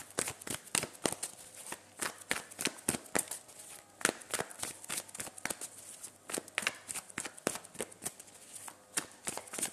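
A deck of tarot cards being shuffled and handled: a run of quick, irregular flicks and snaps of card against card.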